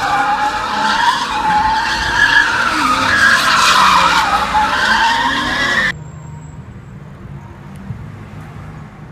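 Car tyres squealing as the car spins its wheels in tyre smoke: a loud, wavering screech that cuts off suddenly about six seconds in, leaving only a faint background sound.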